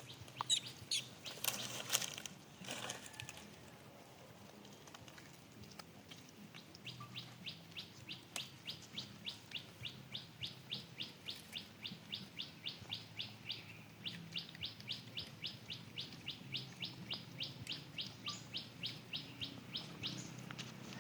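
A bird chirping: short high chirps repeated evenly, about three to four a second, with one brief pause partway through. A few faint clicks come before the chirping starts.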